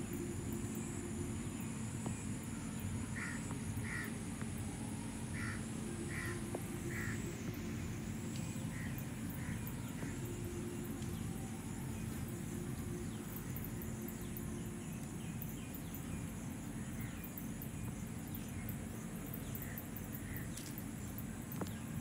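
Outdoor ambience of insects trilling steadily at a high pitch, over a steady low rumble on the microphone. A bird calls in short notes, a run of about six a few seconds in and a few more later on.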